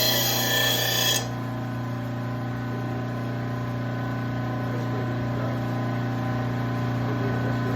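Electric blade sharpener grinding a steel mower blade: a harsh, hissing grind that stops suddenly about a second in, leaving the sharpener's motor running on with a steady hum.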